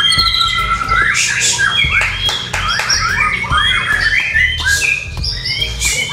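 Several caged white-rumped shamas (murai batu) singing at once in a song contest: a dense tangle of overlapping loud whistles, quick rising and falling phrases and sharp clicking notes, over a low background rumble.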